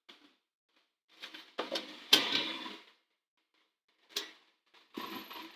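Handling noise: a string of short, irregular clicks and knocks as objects are handled, the loudest about two seconds in.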